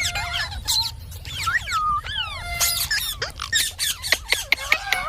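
Indian ringneck parrot chattering, a quick string of swooping whistles and chirps with sharp clicky notes in the second half.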